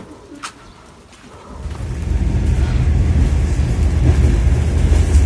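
Electric commuter train (elektrichka) rumbling in: after a couple of clicks, a loud, steady low rumble with a deep hum swells in about a second and a half in and holds.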